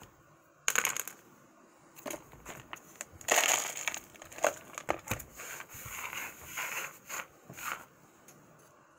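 Trail mix (nuts, seeds and M&M's) rattling and clattering into a jar and against its sides as it is dropped in by hand. A sharp clatter comes about a second in, the loudest rattle a little past the middle, and scattered knocks after it.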